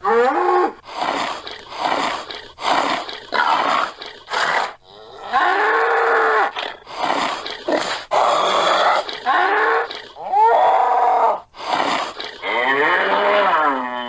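Custom-made elephant call sound effects, mixed from recordings of other animals: about a dozen calls one after another, short and long, several rising and then falling in pitch.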